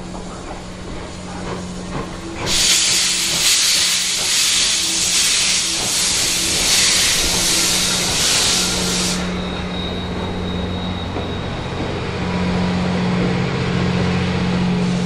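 D51 200 steam locomotive venting steam: a loud hiss starts about two and a half seconds in, lasts about six and a half seconds, then cuts off suddenly, over a steady low hum.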